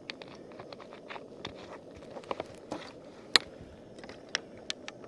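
Light, irregular clicks and knocks of camp cooking gear being handled, with one sharper knock about three seconds in, over a low steady hiss.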